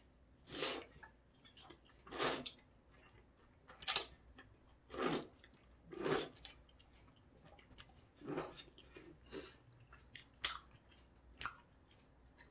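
A person eating thick udon noodles close to the microphone: a run of short slurps and chews, about nine separate bursts roughly a second apart, the loudest about four seconds in.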